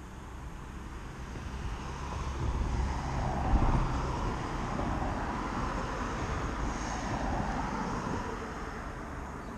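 A vehicle passing by: a rumble and hiss that swells to a peak about three and a half seconds in, then slowly fades away.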